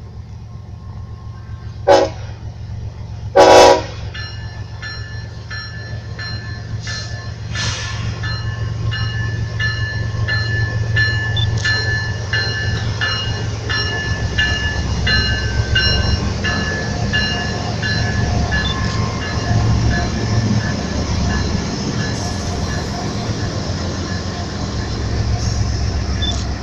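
Freight locomotive horn sounding two blasts, a short one about two seconds in and a longer one just after. Then a freight train rolls past with a steady low rumble that grows louder, and broken high squealing tones over it.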